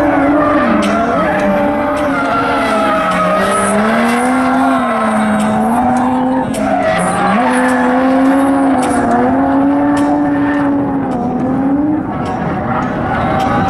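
Drift car's engine held high in the revs, its pitch rising and falling again and again as the throttle is worked, over the hiss and squeal of rear tyres spinning through a smoky drift.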